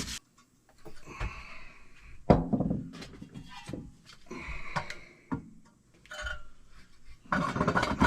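Hard objects being handled and set down on a work surface: a series of separate knocks and thunks, the loudest about two seconds in, with a quicker run of clatter near the end.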